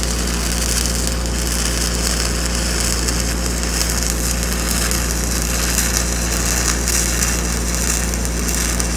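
Stick-welding (SMAW) arc sizzling steadily as a downhill filler pass is run on steel pipe, with a steady low hum underneath.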